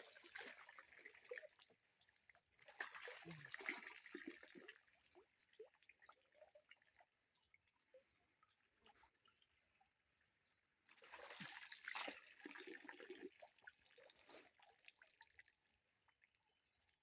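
Faint splashing and trickling of river water as someone washes in it. It comes in three spells: at the start, around three to four seconds in, and around eleven to twelve seconds in. Between them there are only scattered small drips and splashes.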